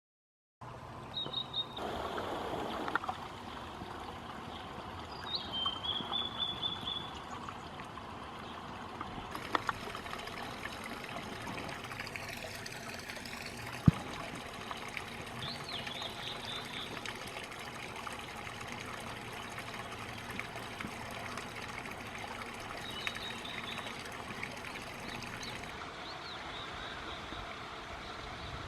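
Small mountain stream trickling and splashing steadily over rocks. A few short high chirps sound over it now and then, and there is a single sharp click about halfway through.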